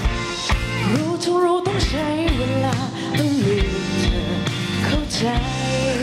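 Pop-rock band playing live: drums, bass and electric guitars, with a lead melody line that slides up and down in pitch over a steady beat.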